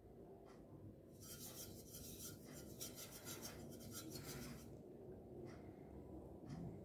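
Faint scratchy rubbing of a paintbrush, a run of quick short strokes starting about a second in and stopping near the five-second mark.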